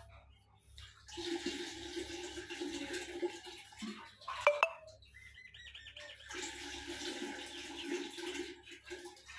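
A milky liquid poured in a thin stream from a steel cup through a plastic strainer into a steel pot, splashing steadily in two pours. Between them, about halfway through, comes a sharp metallic clink as the cup is dipped for more.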